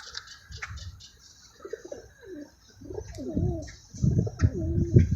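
Low, wavering cooing calls of a bird, several in a row through the second half.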